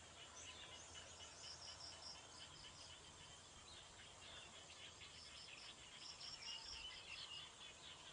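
Faint outdoor nature ambience: high-pitched chirps in quick repeated runs, over a low steady hiss.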